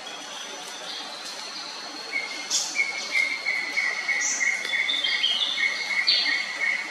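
Forest birds calling: short high chirps and whistled notes, and from about two seconds in a long steady trill that carries on.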